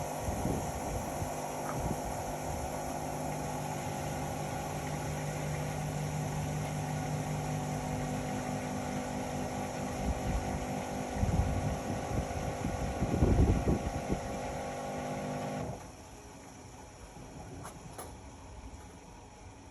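Indesit Innex XWA 81252 washing machine running with a steady motor hum and a few low rumbles, until the hum cuts off suddenly about sixteen seconds in.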